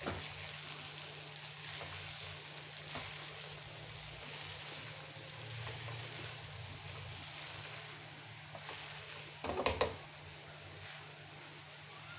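Minced meat with onions and masala sizzling in a frying pan as it is stirred and scraped with a spatula, with a short clatter of the spatula against the pan about ten seconds in.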